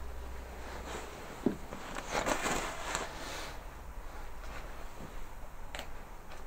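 Someone moving through a doorway on a rubble-strewn floor: footsteps and clothing rustle, with a sharp knock about a second and a half in, a longer scraping rustle just after, and a short click near the end.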